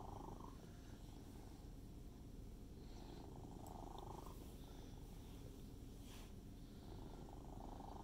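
Domestic cat purring close by: a faint, steady low rumble that swells with each breath, about every three to four seconds. A couple of faint clicks from metal knitting needles about halfway through.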